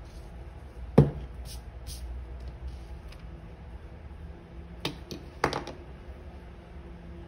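Hand tools knocking on a cutting mat at a leatherworking bench: one sharp hard knock about a second in, then a click and a short clatter around five seconds in as an awl is set down and a utility knife picked up.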